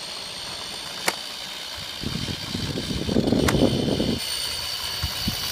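Razor E100 electric scooter riding over pavement: a steady motor whine with a rumble of wheels on asphalt that swells for a couple of seconds in the middle, and two sharp clicks.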